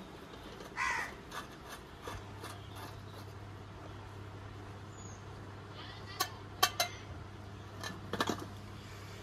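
Screwdriver and pliers tightening a wire terminal screw in a rice cooker's base: light scraping, then a few sharp metal clicks of the tools about six seconds in and again near the end, over a low steady hum.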